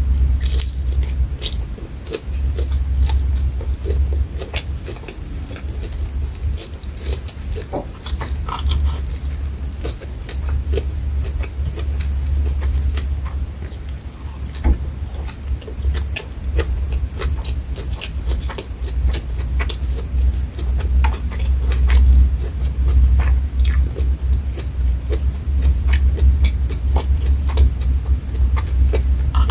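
Close-miked eating: biting into and chewing fried shrimp with rice and raw salad greens, with many small wet mouth clicks and smacks scattered throughout.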